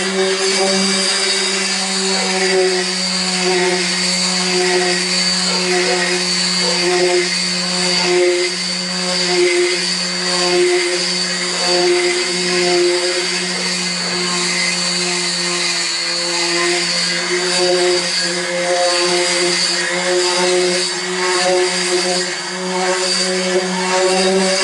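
Small corded electric palm sander running against the bus roof, sanding the old paint back. It gives a steady motor hum over a grinding hiss that wavers slightly as the sander is pressed and moved.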